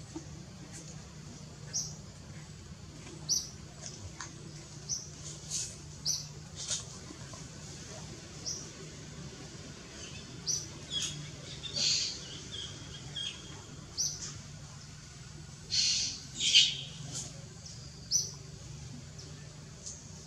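Many short, high-pitched animal chirps and squeaks at irregular intervals, the loudest a few seconds before the end, over a faint low steady hum.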